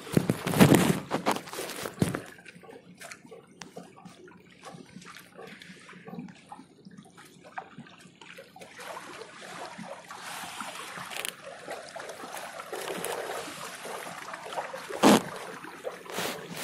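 Water sloshing and trickling against a small fishing boat, broken by a few sudden splashes or knocks, the loudest about half a second in and another near the end.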